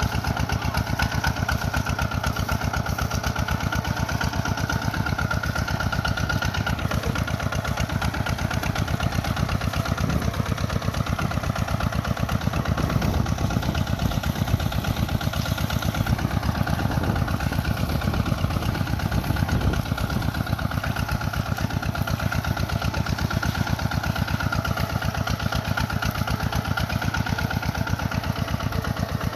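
Kubota bulldozer's diesel engine running steadily, with a rapid, even firing beat.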